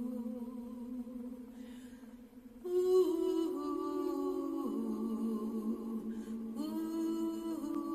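A single voice chanting in long held tones, moving in steps between a few pitches. The sound drops briefly about two and a half seconds in, then a louder, higher note begins.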